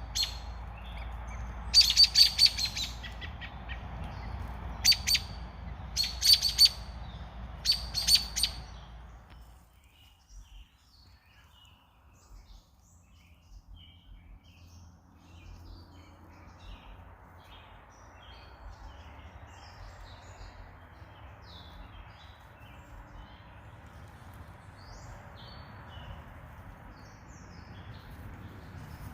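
Birds chirping: clusters of loud, sharp chirps in the first nine seconds, then many faint chirps scattered through the rest.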